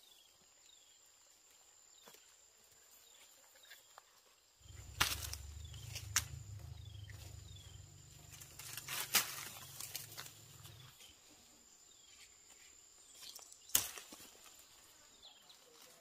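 Outdoor ambience: short falling animal chirps repeated throughout over a steady high thin drone, broken by a few sharp snaps and a low rumble from about five to eleven seconds in.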